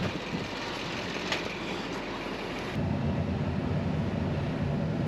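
Wind buffeting the microphone, then, about three seconds in, a loader's engine running steadily with a low rumble.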